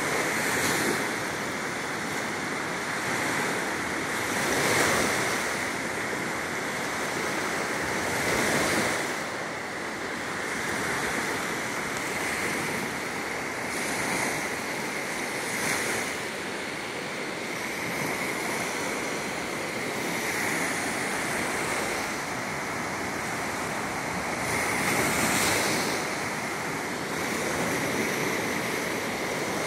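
Small lake waves breaking and washing up a sandy beach: a steady surf wash that swells each time a wave comes in, every few seconds.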